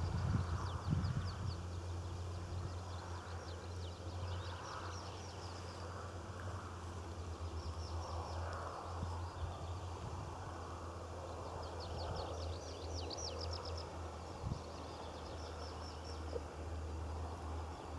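Small songbirds singing short, high, rapid trilled phrases several times, over a steady low outdoor rumble.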